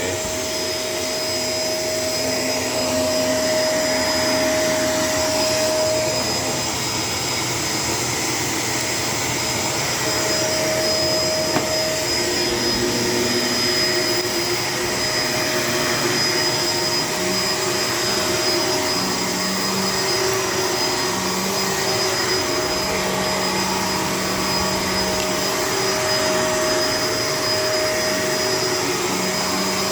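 Bagless vacuum cleaner running continuously as it is pushed over the floor, with a steady high whine and lower tones that shift a little in pitch as it moves.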